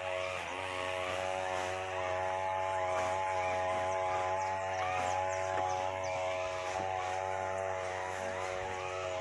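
A small motor running at a steady speed, a constant hum with evenly spaced overtones.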